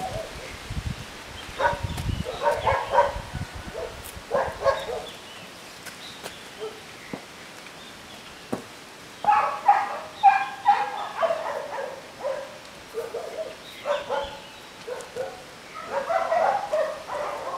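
Dogs barking in short runs of barks, again and again.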